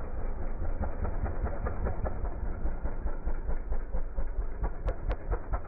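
Motocross dirt bike engine running close by with a fast, uneven, lumpy beat, with a couple of sharp clicks near the end.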